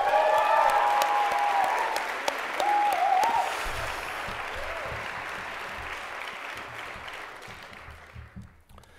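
Audience applauding. The applause is loudest at the start and dies away steadily over about eight seconds.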